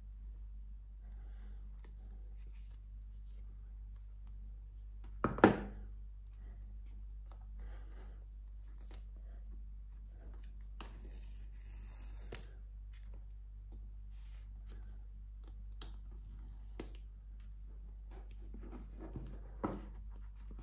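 Handling of a cardboard iPhone box: one sharp thump about five seconds in, then the paper pull-tab seals tearing off with a dry rip lasting a second or two, followed by light clicks and scrapes of fingers and cardboard as the lid is worked off.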